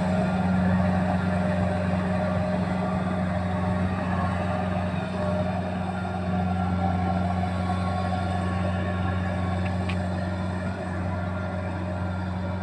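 Rice combine harvester's engine running at a steady speed, a constant drone with no change in pitch.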